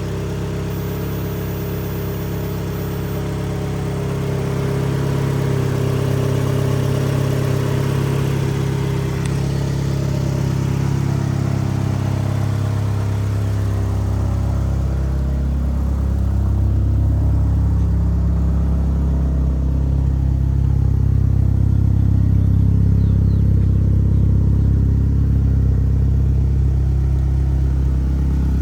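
A car engine running steadily, its pitch wavering slightly and growing a little louder from about halfway through.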